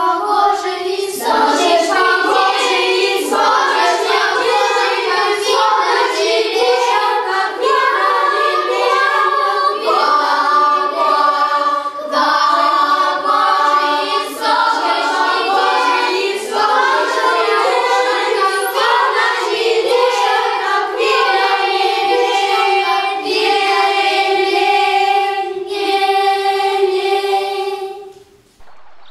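A children's choir singing a song together in sustained, changing notes, stopping suddenly near the end.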